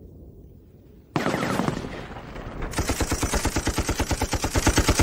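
Machine gun firing: a sudden loud shot with a short echoing tail about a second in, then a long rapid burst of evenly spaced rounds. It is a war-film sound effect over a low rumble.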